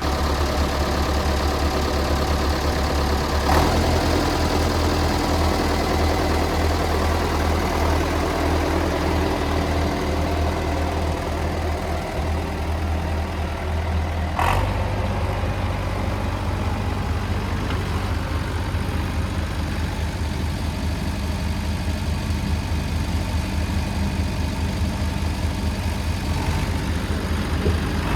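David Brown tractor engine idling steadily as it warms up after a boost start from a flat battery. Its tone changes abruptly about three and a half seconds in and again about fourteen seconds in, each time with a short click.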